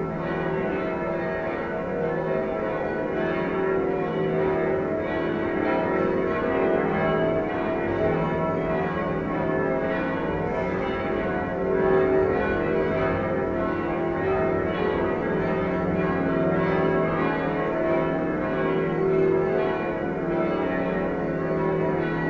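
Church tower bells ringing a festive peal (campane a festa), several bell tones overlapping in a continuous, unbroken ringing.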